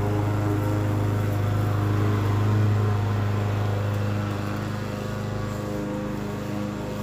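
Petrol lawn mower engine running steadily at an even pitch with a strong low hum, getting a little quieter about halfway through.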